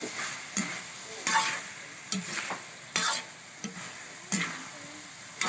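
Metal spatula stirring and scraping chopped meat in a large aluminium wok, with repeated scraping strokes less than a second apart over a steady sizzle of frying.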